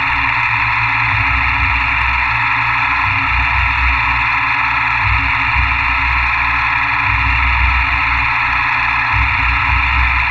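Milling machine running steadily while machining a fixture plate: an even, banded hiss with a low rumble that swells and fades.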